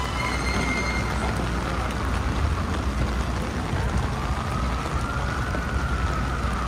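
Steady heavy rain falling on an umbrella over the low rumble of city traffic. From about four seconds in, a siren wails faintly, rising and then falling.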